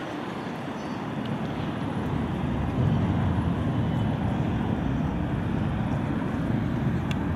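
Road traffic: a steady low rumble with no siren or horn, a little louder from about three seconds in.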